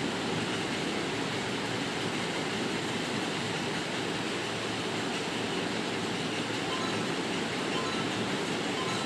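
Steady, even rushing background noise with no voices.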